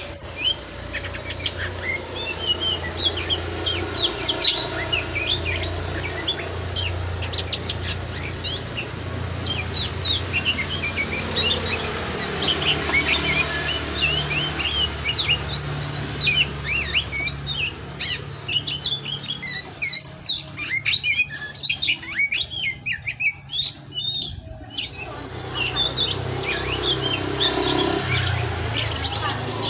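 Oriental magpie-robin (kacer) singing a fast, continuous run of varied chirps and whistled notes, over a steady low hum.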